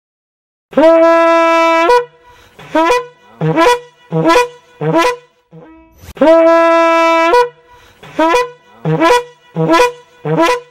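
Horn intro jingle: a long held blast of about a second followed by four short, evenly spaced blasts, the figure played twice.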